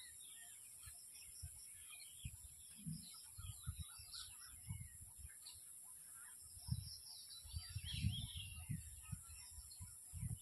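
Birds chirping and calling, short chirps that rise and fall in pitch scattered throughout and busiest near the end. Behind them run irregular low thumps and rumbles and a steady high hiss.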